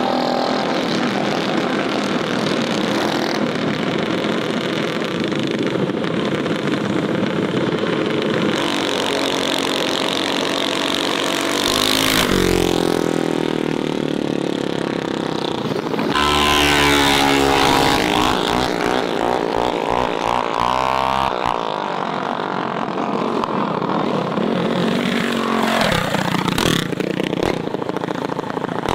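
Mini bike engines running and revving as the bikes race past, their pitch sweeping up and down as each goes by. The loudest pass comes just past the middle.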